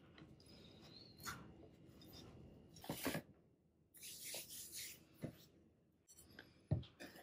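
Silicone spatula scraping and folding scone dough against a glass mixing bowl, then hands scooping the dough out of the bowl, with one soft thump near the end.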